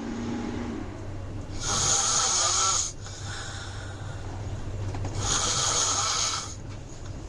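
A sleeping person snoring in a regular rhythm: two long snores about three and a half seconds apart, each lasting over a second, with a fainter breath between them.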